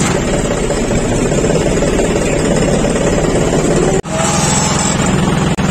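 John Deere 5305 tractor's three-cylinder diesel engine running steadily, heard from the driver's seat. The sound cuts out abruptly about four seconds in and again briefly near the end.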